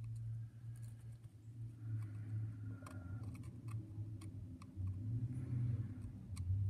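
Faint, irregular ticks and clicks of a screwdriver turning out a small screw in the governor of a Victor phonograph motor, over a steady low hum.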